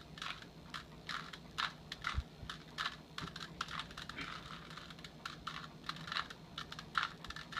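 Plastic Rubik's Cube layers being turned, a quick irregular run of clicks, several a second.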